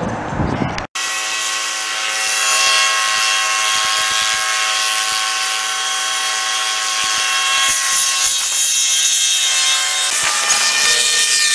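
Robinson R44 helicopter whining with several steady pitches at once, like a chord. Near the end the pitches shift and slide downward.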